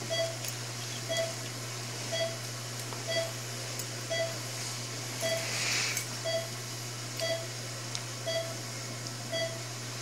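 Patient monitor beeping with each heartbeat: a short single-pitched beep about once a second, steady and even, over a constant low hum of operating-room equipment. A brief rustle comes about five to six seconds in.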